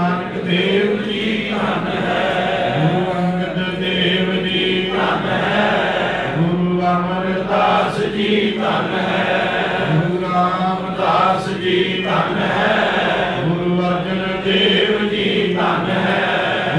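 Sikh kirtan: a man chanting a devotional hymn to harmonium accompaniment, in held notes that step between pitches every second or two.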